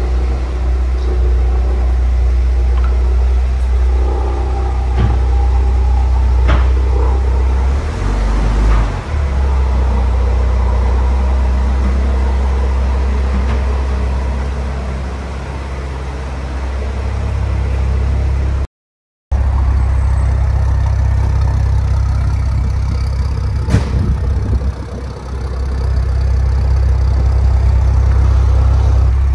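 A car engine running, a steady low rumble with a few light clicks and knocks over it; the sound cuts out completely for a moment about two-thirds of the way through.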